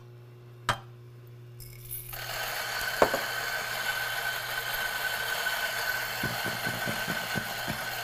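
A single-dose espresso burr grinder starts about two seconds in and runs steadily with a constant whine as it grinds a dose of beans, with light crackling near the end. A couple of clicks come from the metal dosing cup being handled before the motor starts.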